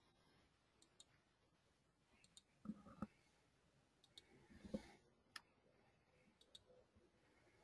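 Near silence broken by several faint, scattered computer mouse clicks.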